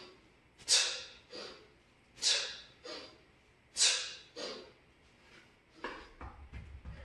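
Forceful hissing breaths timed to kettlebell swings: three sharp exhales about a second and a half apart, each followed by a shorter, softer breath. Near the end the breathing stops and the kettlebell is set down on the rubber gym floor with a low, dull knock.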